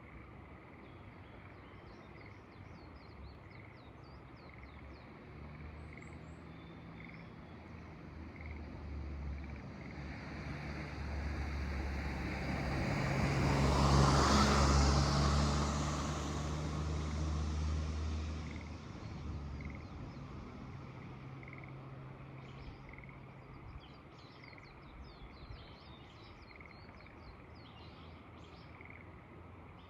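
A motor vehicle passes by, its engine hum and tyre noise rising to a peak about halfway through and fading away. Frogs and birds call faintly around it, with one regular call about once a second.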